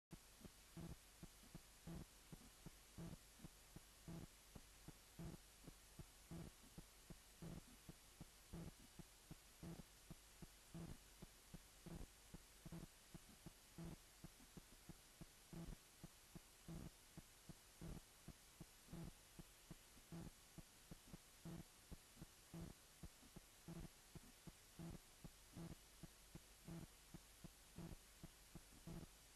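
Fast, steady heartbeat, a little over two beats a second, over a low hum: a fetal heartbeat.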